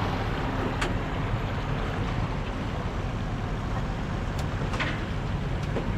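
Boat motor running steadily while under way, mixed with a steady rush of wind and water noise.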